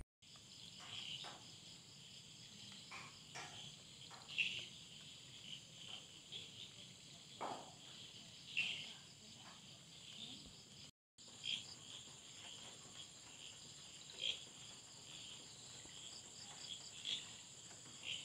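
Crickets chirping: a faint, steady high-pitched trill with scattered louder chirps over it, cutting out briefly about eleven seconds in.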